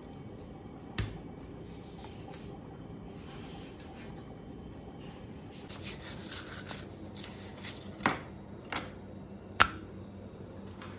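Knife and fish on a plastic cutting board as fillets are skinned: soft scraping of the blade along the skin, with sharp knocks on the board, one about a second in and three near the end.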